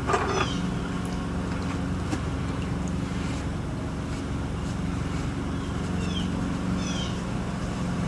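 Steady low machine hum, with a few short high chirps over it.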